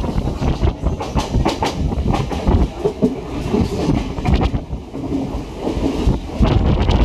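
On-board running noise of a moving Sri Lanka Railways passenger train: a steady low rumble with irregular sharp knocks and clacks from the wheels over the track and the shaking carriage.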